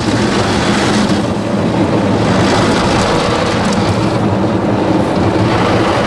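Spinning brushes of an automatic rollover car wash scrubbing over the car, heard from inside the car: a loud, steady rush of bristles and water spray over a low machine hum, swelling up sharply at the start.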